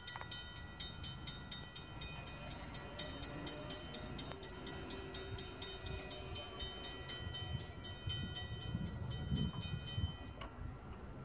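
Railroad grade-crossing warning bell ringing rapidly and evenly, several strokes a second, while the crossing signals flash; it stops about ten seconds in, once the gate arm is down. A low rumble runs underneath.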